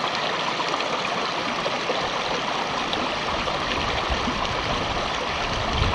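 Shallow river water running steadily over rocks. A low rumble joins in about three seconds in.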